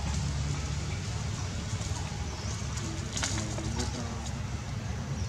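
Outdoor ambience: a steady low rumble and hiss, with a faint, low, wavering call from an animal a little past the middle and a brief sharp rustle about three seconds in.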